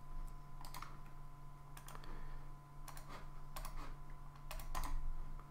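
Computer mouse clicking several times at irregular intervals, some clicks in quick pairs, over a steady low electrical hum.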